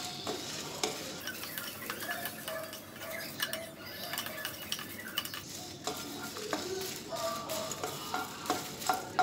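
A wooden spatula stirring and scraping dried red chillies, curry leaves and sliced garlic in a nonstick pan, with a light sizzle and irregular clicks as the spatula knocks the pan, the sharpest one near the end. The spices are being roasted until the curry leaves are crisp and dry.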